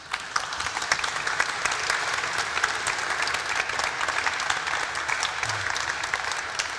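Audience applauding: many overlapping hand claps that start suddenly and hold steady.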